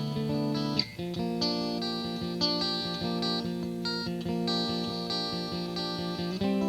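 Electric guitar played through a Fender Frontman 25R practice amplifier: picked notes and chords ringing on, with the chord changing about a second in and again near the end.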